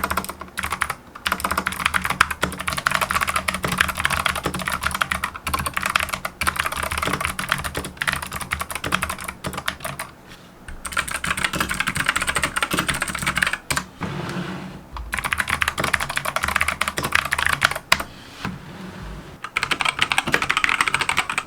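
Fast typing on a Monstargear MK308 keyboard with Gateron optical switches and double-shot PBT keycaps: a dense run of key clicks, broken by short pauses about ten, fourteen and eighteen seconds in.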